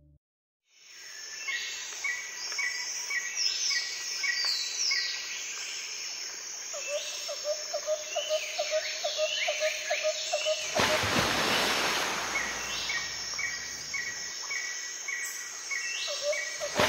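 Dry tropical forest ambience: several birds calling, with strings of short repeated chirps, descending whistled notes and, partway through, a run of low notes about four a second, over a steady high insect buzz. A burst of rushing noise comes in about two thirds through and lasts about a second.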